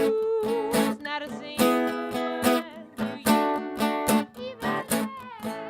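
Live acoustic folk music: a long held sung note ends about half a second in, then strummed chords on an acoustic string instrument carry the song's instrumental close.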